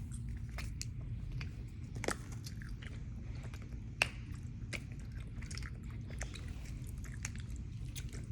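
Scattered small clicks and crackles of a plastic candy container being worked at to get it open, with one sharper snap about four seconds in.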